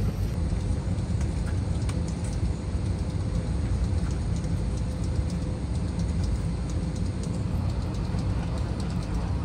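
Steady low rumble and hum of an Airbus A320 cabin at the gate, its air-conditioning and ventilation running, with a faint steady tone and a few light clicks and knocks.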